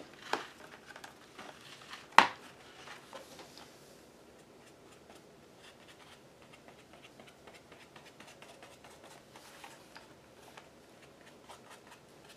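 A light click and then one sharp knock in the first few seconds as the art journal is handled on the cutting mat, followed by faint, scratchy brushing of a small paintbrush working paint into the paper.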